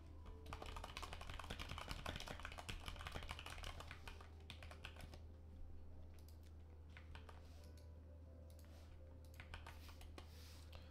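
Typing on a computer keyboard: a fast, dense run of keystrokes for about four seconds, then scattered keystrokes with a short flurry near the end, over a steady low hum.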